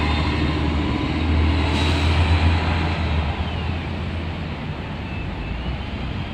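City transit bus driving past close by and pulling away, its engine's low rumble loud for the first three seconds and then fading as it moves off, over general street traffic.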